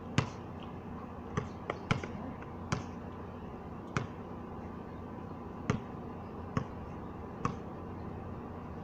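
A basketball bouncing on a concrete court: about nine sharp, irregularly spaced bounces.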